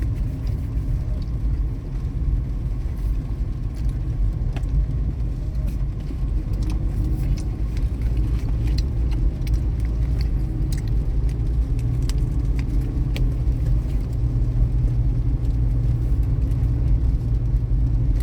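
Steady low rumble, with a few faint clicks and ticks over it.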